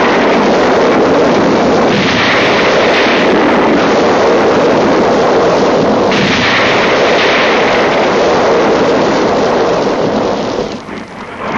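Continuous loud roar of bombing explosions on a film soundtrack, with brighter surges every few seconds, dropping away shortly before the end.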